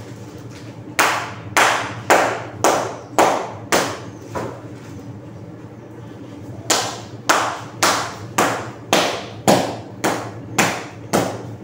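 Sharp knocks in a steady rhythm of about two a second: seven strikes, a pause of about two seconds, then nine more.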